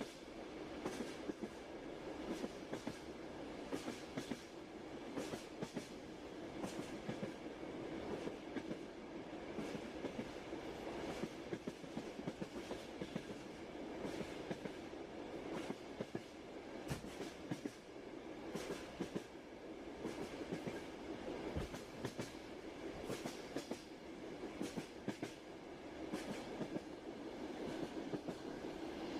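Train wheels running on the rails: a steady rumble with irregular clicks and knocks.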